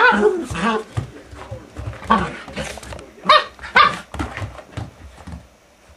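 Two Maltese dogs barking in play while they wrestle: a series of sharp, high barks that stops a little over five seconds in.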